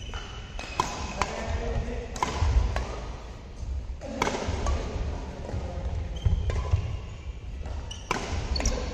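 Badminton rally on an indoor court: sharp racket-on-shuttlecock hits at irregular intervals, shoes squeaking briefly on the court surface and footfalls, with voices in the background.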